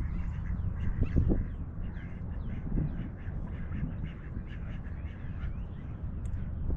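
Ducks quacking at a pond, a few louder calls among many short high ones, over a steady low rumble.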